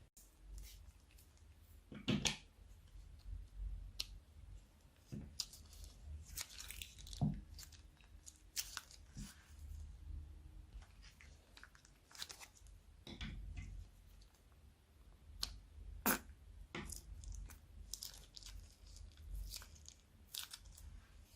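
Slime being mixed and kneaded by hand: irregular sticky clicks, pops and crackles over a soft low rumble of handling, with a few sharper pops about two, seven and sixteen seconds in.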